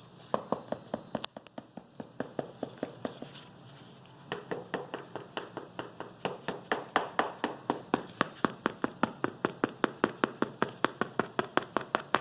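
Rapid, even tapping, about five taps a second, as glue is spread over a plate. The taps pause briefly a few seconds in.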